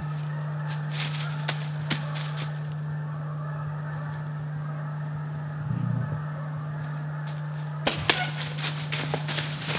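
Dry fallen leaves crackling and rustling under the hooves of a whitetail deer walking through leaf litter: a few crackles about a second in, then a denser run near the end. A steady low hum lies under it all.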